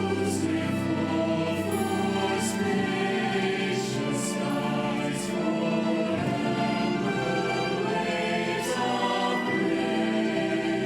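High school band and chorus performing: a choir singing long held notes over band accompaniment.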